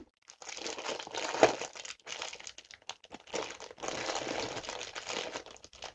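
Stretchy costume-jewelry rings being handled and sorted, with rustling and clicking in bursts and a sharper click about a second and a half in.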